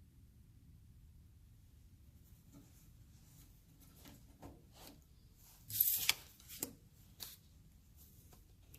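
Faint room tone, broken about six seconds in by a short scraping rustle and then a few light clicks, like something being rubbed or handled.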